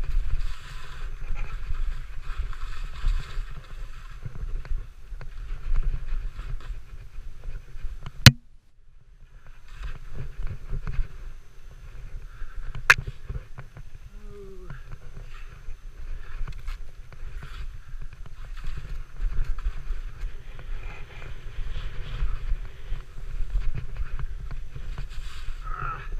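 Skis sliding over snow with wind buffeting the microphone, a steady rushing noise. A sharp click about eight seconds in is followed by a brief lull, then a second click near thirteen seconds.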